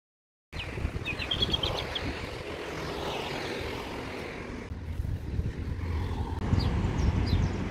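Outdoor ambience: a steady low rumble with short, high chirps about a second in and again near the end.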